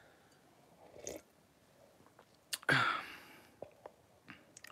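Mouth sounds of someone sipping a drink from a glass: small wet clicks, with a short breathy exhale about three seconds in as the loudest sound.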